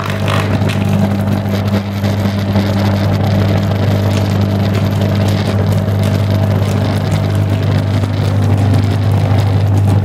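Electrode water heater running in heavily salted water with a loud, deep, steady mains hum, the water boiling hard and crackling. This is the sign of a very large current passing straight through the salt water. Water is poured into the jar near the start.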